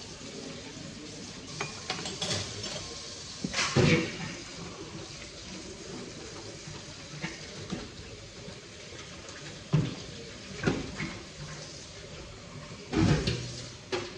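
Frothy coffee poured from a stainless-steel pot into small porcelain cups, with cups and saucers clinking on a tray in short, sharp knocks every few seconds, the loudest about 4 s and 13 s in.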